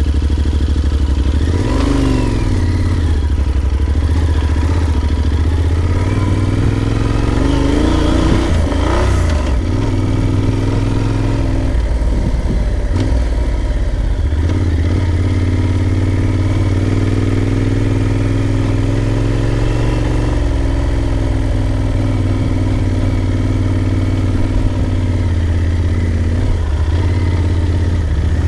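Big-trail adventure motorcycle engine running under load while the bike is ridden through loose sand. The revs rise and fall several times as the throttle is worked.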